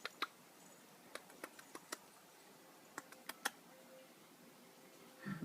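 About eight sharp, light clicks or taps in three loose clusters, over a faint steady hiss. A short, lower sound comes right at the end.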